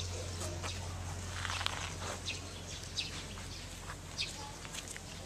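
Outdoor background with scattered short, high chirps over a faint low hum.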